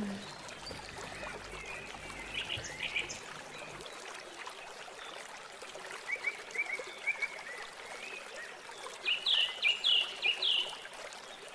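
Milkfish soup bubbling at the boil in a metal pot, a steady watery hiss. Several runs of short, high chirps sit over it, the loudest about nine seconds in.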